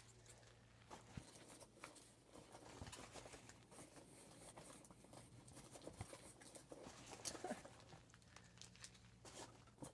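Near silence with faint, scattered rustling and crinkling of a paper packing slip and packaging being handled, over a low steady hum.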